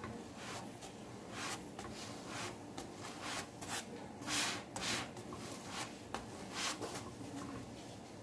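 Slotted wooden spatula rubbing over a flatbread on a flat tawa, spreading oil on it in about a dozen short, irregular scraping strokes.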